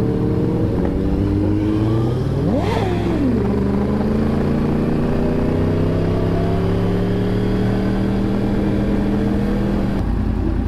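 Motorcycle engine running under a steady, slowly building pull, its note gradually rising. About two and a half seconds in, a quick rev sweeps sharply up and back down. Near the end the steady engine note falls away.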